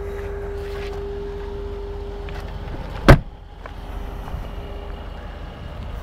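A car door shuts with a single loud thud about three seconds in, over a steady low hum.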